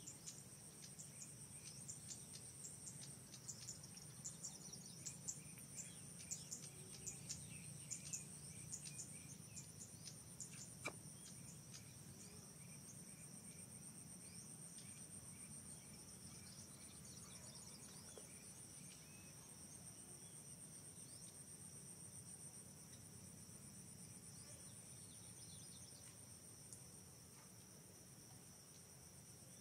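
Steady high-pitched insect chorus of crickets or cicadas, with many short chirps scattered through the first dozen seconds that then thin out.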